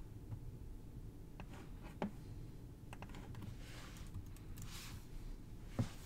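A few scattered clicks from a computer mouse and keyboard over a low steady hum, the sharpest about two seconds in and near the end, with a soft hiss a little after the middle.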